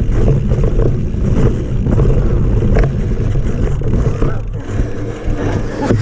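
Wind buffeting a bike-mounted action camera's microphone, together with the rumble and rattle of a mountain bike's knobby tyres and frame rolling fast over a dirt forest trail, with a few sharp clicks from roots and stones. It eases a little near the end as the bike slows.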